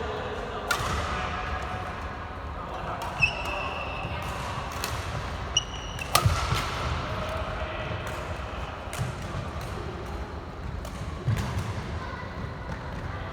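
Badminton rally: sharp cracks of rackets striking the shuttlecock every couple of seconds, the loudest about six seconds in. Two short high squeaks of shoes on the court, with a murmur of voices in the hall behind.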